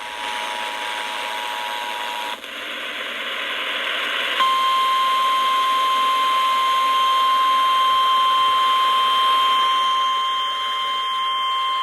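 Emergency Alert System two-tone attention signal, two steady tones sounding together, cutting off about two seconds in. After a couple of seconds of radio hiss, the single steady 1050 Hz NOAA Weather Radio warning alert tone begins and holds to the end, announcing a new warning.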